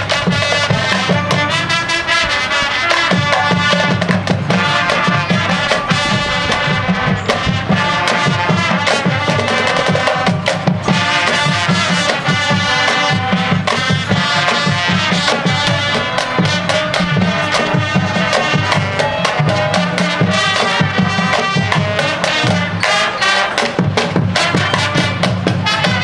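High school marching band playing: massed wind instruments sounding full chords over a drumline beating fast, steady strokes.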